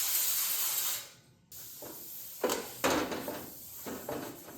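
An aerosol can of Gibbs penetrating oil spraying onto a sheet-metal panel, a steady hiss that cuts off about a second in. Then a few short scuffs and rubs on the metal.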